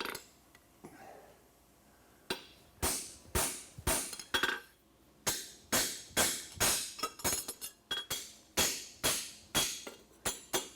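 Farrier's hammer striking a steel horseshoe on an anvil. After a pause of about two seconds comes a run of ringing blows, about two a second, which quicken into lighter, closer taps toward the end.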